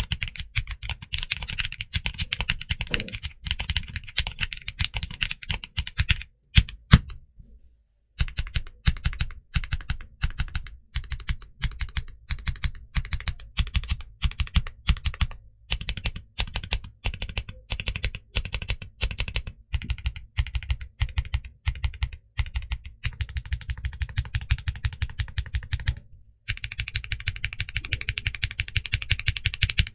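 Continuous fast typing on a mechanical keyboard fitted with Kinetic Labs HMX Butter switches, which have long-pole stems and a high-pitched clack. About seven seconds in, a few louder single strokes come before a short pause, and the typing stops briefly again near the end.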